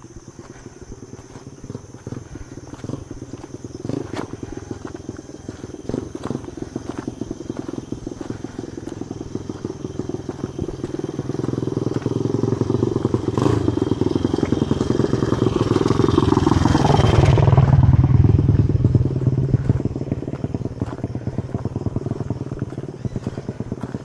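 A motorcycle engine approaching and growing louder, passing close about three-quarters of the way through with a sharp drop in pitch, then fading away. Footsteps continue underneath.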